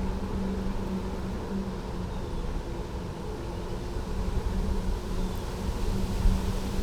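Riding noise from a bicycle on the move: wind on the microphone and tyres on the path make a steady low rumble, with a low, even hum that drops out now and then.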